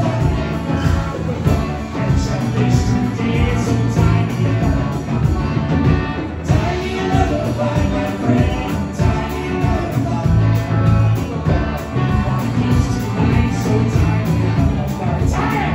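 A live band playing a rock song on electric guitars, electric bass and drum kit.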